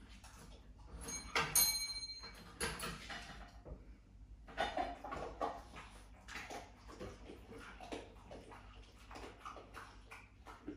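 A small desk bell dings once, about a second and a half in, ringing briefly. Light knocks and clatter come and go around it.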